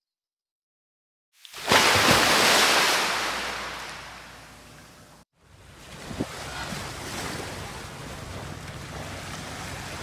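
Silent for about the first second and a half, then surf and wind on the microphone set in loudly and fade away until a brief cut to silence. After the cut, small waves wash onto a sandy beach while wind buffets the microphone.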